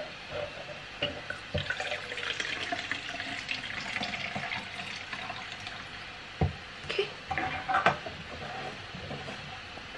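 Water poured from a stainless-steel electric kettle into a plastic tumbler, a steady hissing splash for about five seconds. A few short clicks and knocks follow, as the tumbler's plastic lid is handled.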